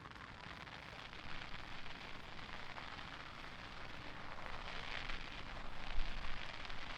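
Starmine fireworks barrage crackling and fizzling continuously, growing louder, with a deep boom about six seconds in.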